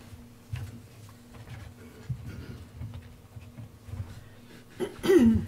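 Meeting-room background picked up by the dais microphones: a steady low electrical hum with scattered soft knocks and shuffles. About five seconds in comes one short loud sound that falls in pitch, the loudest thing here.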